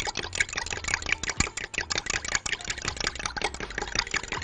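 Fork whisking beaten eggs and milk in a glass measuring jug: rapid, steady clinking of the metal fork against the glass, many strokes a second.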